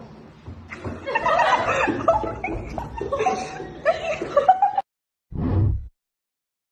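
A person laughing and chuckling in short breathy bursts, cut off abruptly, then a brief low whoosh of the TikTok end-screen sound.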